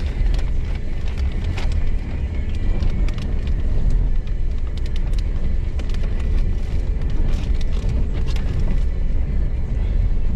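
Off-road vehicle driving over a rough dirt track, heard from inside the cabin: a steady low rumble with scattered clicks and rattles throughout.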